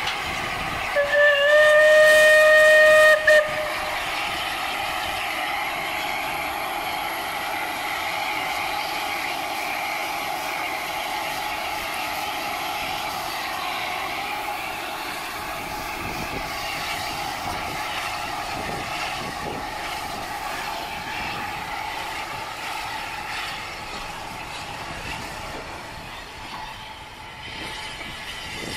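Steam locomotive whistle blown once for about two seconds on a single pitch, rising slightly as it opens. It is followed by the steady running noise of the train on the move, which eases off a little near the end.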